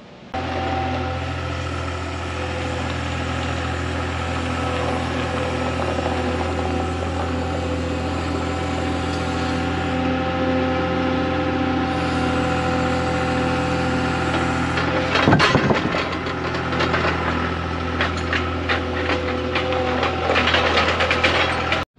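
Skid steer loader's diesel engine running steadily close by while it lifts a heavy foam-filled tire into a pickup bed. A burst of knocks and clatter comes about fifteen seconds in, with more rattling near the end, as the tire is set down in the bed.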